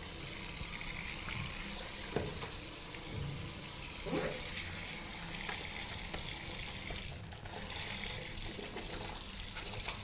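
Tap water running steadily into a ceramic washbasin, rinsing cleaning foam out of the basin while it is wiped with a sponge.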